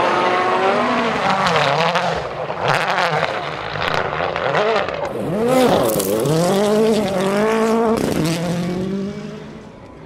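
World Rally Cars' turbocharged four-cylinder engines at full throttle on gravel, the engine pitch climbing and dropping again and again through gear changes. Several sharp cracks cut through, and the sound fades near the end.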